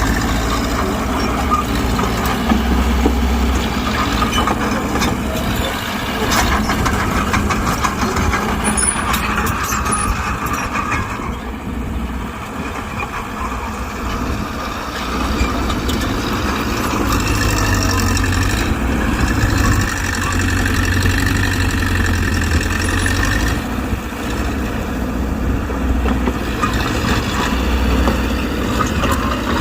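Diesel engine of a Mitsubishi BD2G bulldozer running steadily under work, easing off for a few seconds about twelve seconds in and then working harder again.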